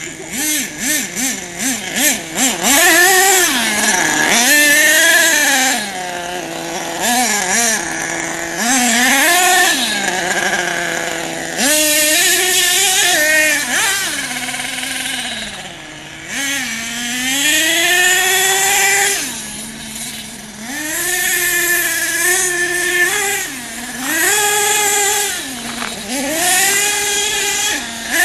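HPI Savage 25 radio-controlled truck's small two-stroke nitro engine revving up and down again and again as it is driven: a high buzzing whine that rises and falls every second or two, with a few short quick throttle blips near the start.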